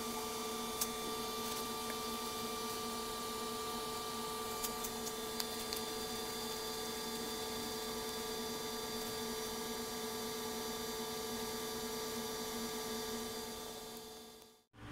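A steady hum of several fixed tones, with a few faint clicks, fading out just before the end.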